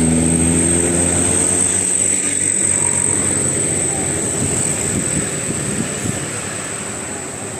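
Bus basuri air horn sounding a multi-note chord that cuts off within the first two seconds, followed by bus engine and road noise that slowly fades.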